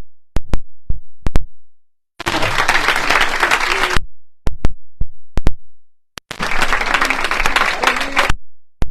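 Church congregation clapping in bursts: a few sharp single claps, then about two seconds of dense clapping, and the same again.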